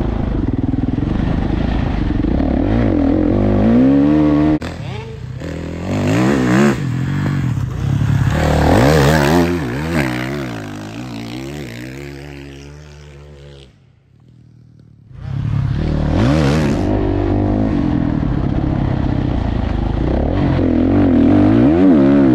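Dirt bike engine revving up and down through the throttle and gear changes while riding, heard from on the bike. In the middle the engine sound changes and fades, with about a second of near silence before the onboard engine comes back.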